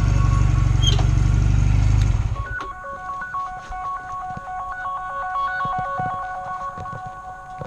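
Motorcycle engine running loudly, then falling away about two seconds in. After that comes a series of steady electronic tones that step between a few pitches, like a simple beeping melody.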